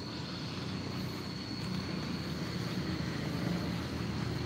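A motor vehicle's engine running steadily, slowly growing louder, with a thin steady high tone above it.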